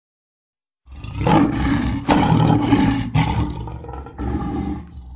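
Lion roaring: a run of deep, loud roars starting about a second in, with a quieter final roar near the end.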